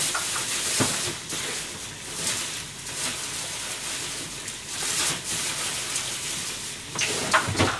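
Pots boiling on a stove: a steady bubbling hiss of simmering liquid, with a few brief clicks.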